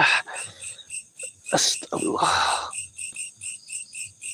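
Crickets chirping in a steady, evenly repeated pulse, with a few louder close-up noises near the start and around two seconds in.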